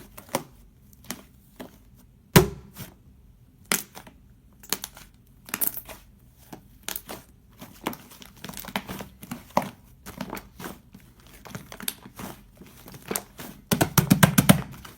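Fluffy cloud slime being squeezed and pulled apart by hand, giving irregular crinkly crackles and tearing pops, with a dense run of crackling near the end.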